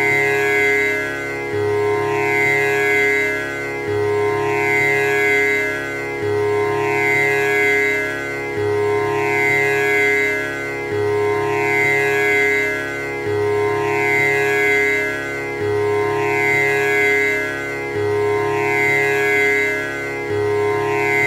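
Tanpura drone: the four strings plucked in a steady repeating cycle, about once every two and a half seconds, each pluck ringing with the instrument's buzzing jawari overtones over a sustained low note.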